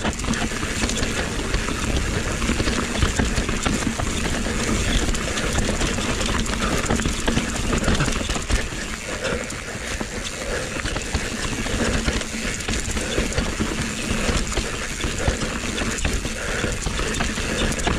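Mountain bike rolling down a dirt forest singletrack: steady tyre noise on the dirt, with the chain and bike parts rattling in many small knocks over the bumps.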